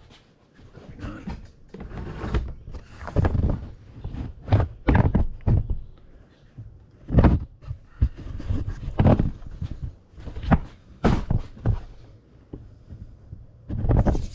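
Irregular thuds and clunks, a dozen or more scattered knocks, from tools and metal parts being handled at a workbench while a clamp is being set on a bicycle fender.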